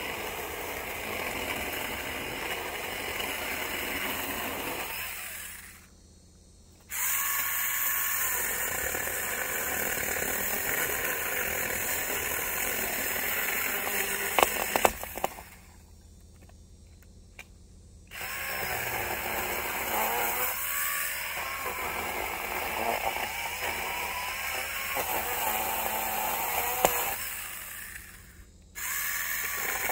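Saker mini cordless electric chainsaw with a 4-inch bar and 20-volt battery, its chain cutting hard into a fallen pine log. The motor stops three times, about 5, 15 and 28 seconds in, and comes straight back to full speed each time. A few sharp cracks sound just before the second stop.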